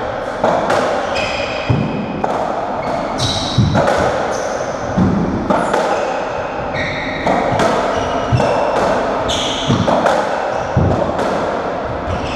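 A racketball rally: the ball cracks off rackets and the court walls about twice a second, each hit echoing around the squash court, with short high squeaks of trainers on the wooden floor between hits.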